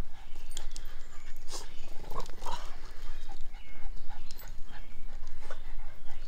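Boston Terriers playing together, a dog-made scuffle of quick, short scuffs and clicks with the odd brief yelp-like sound.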